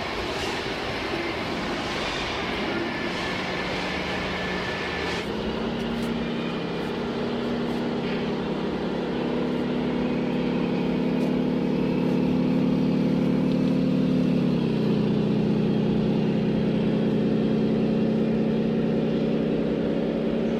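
Engine-type hum running steadily over background noise. Its pitch steps up about five seconds in and steps down again near fifteen seconds.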